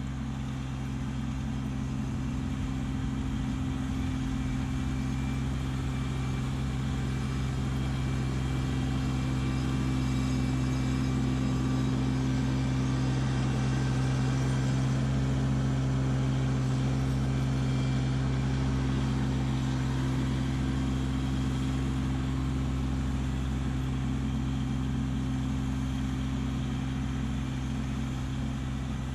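Kubota LX2610 compact tractor's three-cylinder diesel engine running steadily as it works with its front snowblower, growing louder toward the middle and easing off again.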